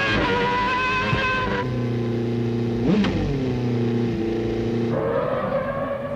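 Formula One cars' engines running at high revs, with a car sweeping past about three seconds in, its pitch rising then dropping. The engine note changes abruptly twice as the broadcast sound switches between trackside positions.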